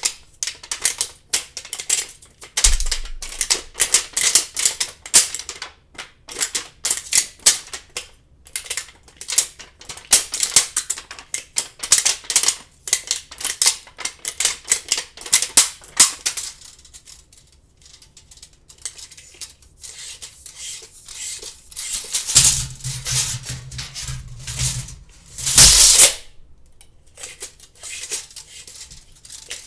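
Tape measure being worked by hand: rapid, irregular clicking and rattling of the blade and case for the first half, thinning to scattered clicks. Then a longer rattle with a low hum from about 22 s in, ending in one loud snap about 26 s in.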